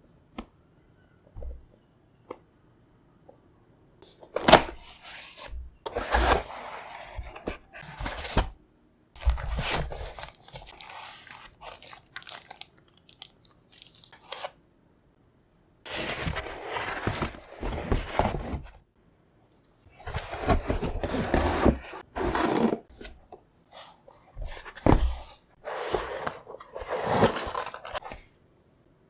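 Keyboard packaging being opened and handled, in bursts of rustling, crinkling and tearing with a few knocks, separated by short pauses.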